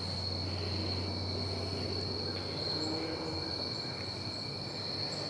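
Steady high-pitched chorus of crickets trilling, over a low rumble that fades about halfway through.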